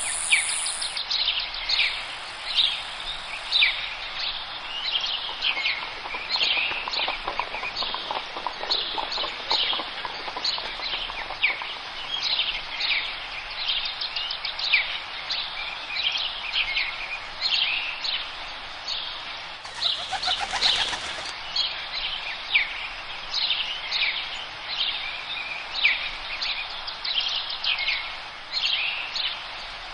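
A dense chorus of small forest songbirds, many short high chirps and twitters overlapping without a break. A brief lower-pitched pulsing call cuts in about two-thirds of the way through.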